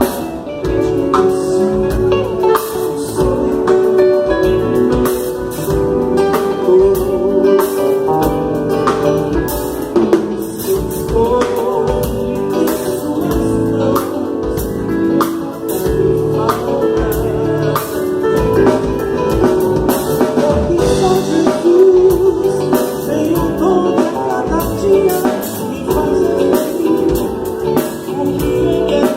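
A live worship band playing a song at a soundcheck: singing over drum kit and guitar.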